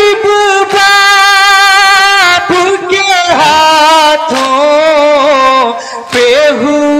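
Men chanting a nauha, an Urdu mourning lament for Muharram, through a microphone: long held notes with a wavering pitch, broken twice by short pauses for breath.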